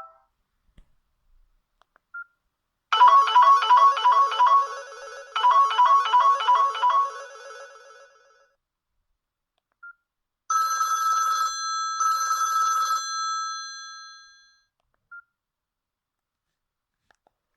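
Samsung mobile phone ringtones played one after another through the phone's speaker. First comes a melodic ringtone of quick repeated notes in two phrases that fades away. Then comes a two-burst electronic telephone-style ring whose tones die away, with short single beeps in between.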